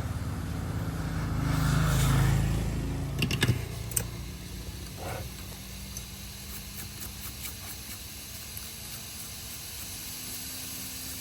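A small motor runs with a low buzzing hum, loudest about two seconds in. It is followed by a few sharp clicks and then a quieter steady hum with light ticks.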